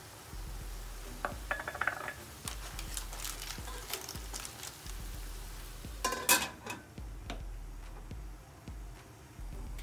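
Clams and napa cabbage simmering in a frying pan with a light sizzle. Chopped leek goes in, then the clam shells clatter and click as they are stirred, and about six seconds in a metal-rimmed glass lid goes onto the pan with a ringing clank, after which the sizzle is muffled.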